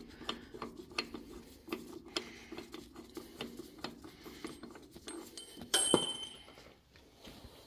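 Steel pulley installer tool being spun off a threaded shaft by hand, with small irregular clicks and scraping of metal on metal. Just before six seconds in, one sharp metallic clink with a short high ring: a steel spacer washer dropping.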